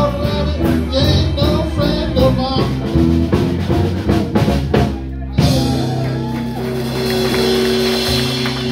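Live rock-and-roll band with vocals, electric guitars, bass, drums and keyboard finishing a song: sung lines over a steady drum beat, a short break about five seconds in, then the band hits and holds a long final chord with ringing cymbals.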